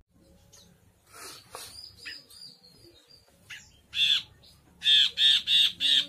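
Caged brinji kelabu (a bulbul) calling. A few soft chirps and a slurred, falling whistle come first, then loud, sharp, repeated notes in a quick run of four near the end.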